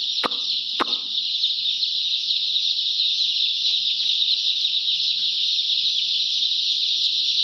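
A crowd of young chicken chicks peeping all at once, their calls blending into a continuous high chorus. Two sharp clicks sound within the first second.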